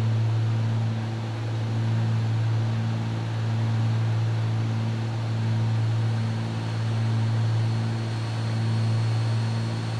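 Cabin drone of a Cessna 310's twin piston engines and propellers in cruise descent: a steady deep hum whose loudness swells and fades slowly, about every two and a half seconds.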